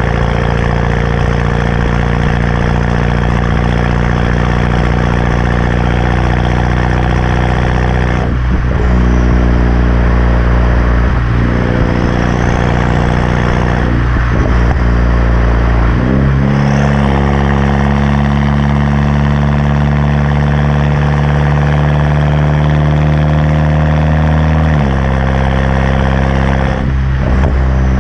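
Turbocharged four-cylinder engine of a BMW 328i running through a catback exhaust with muffler and resonator deleted, giving a loud, steady drone. Its pitch shifts about a third of the way in, steps up about halfway through, holds, then drops back near the end.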